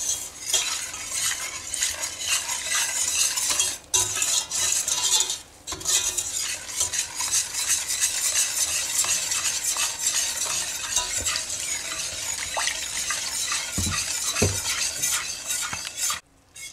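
Wire balloon whisk stirring milk into flour, starch and sugar in a stainless steel pot, the wires scraping and swishing against the metal steadily, with two brief pauses in the first six seconds. The pot is still off the heat, being whisked cold so that no lumps form.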